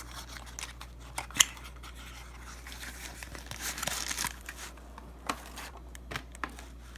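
A small cardboard knife box being opened by hand: packaging rustling and scraping, with a few sharp clicks and snaps, the loudest about a second and a half in.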